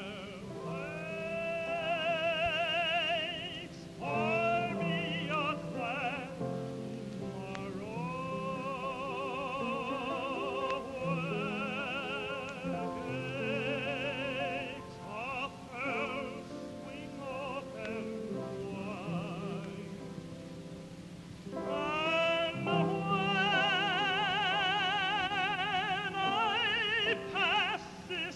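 Gospel music: a high solo voice holds long notes with wide vibrato over sustained low accompaniment. It drops back for a moment about twenty seconds in, then comes in strongly again.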